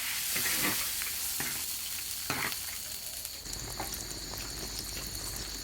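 Pork intestines braising in spicy broth in a pan, sizzling and bubbling with small crackles. About three and a half seconds in, a low steady hum and a faint high whine join the sizzle.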